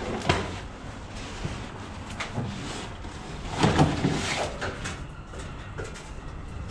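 Knocks and scrapes of a plywood door being pushed open, loudest about three and a half to four seconds in, with a few lighter knocks before and after.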